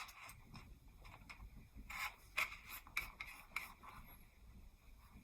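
Small plastic model-kit parts being handled and set down on a work surface: a series of faint clicks and short scrapes, most of them between about two and four seconds in.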